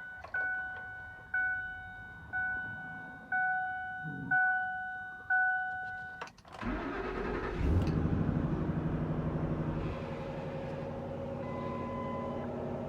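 Pickup truck's warning chime dinging about once a second, then the engine cranks and starts about six and a half seconds in, flares up briefly and settles into a steady idle.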